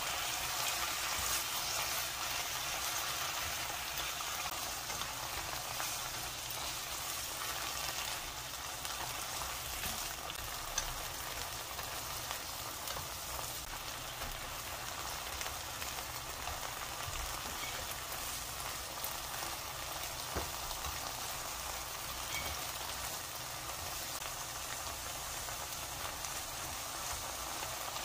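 Strips of pork sizzling steadily as they are stir-fried in a nonstick wok, with a few sharp clicks.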